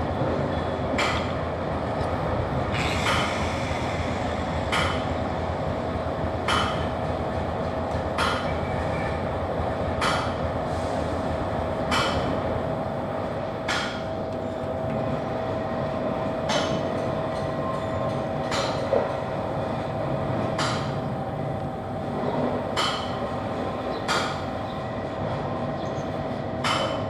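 Steady mechanical running noise with a thin constant whine, and a sharp tick about every two seconds.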